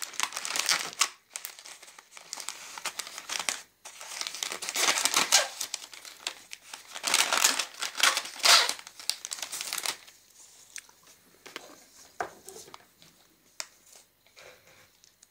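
Plastic snack bag of roasted sunflower seeds crinkling and tearing as it is cut open with a knife, in loud bursts for about ten seconds, then only quieter scattered rustles.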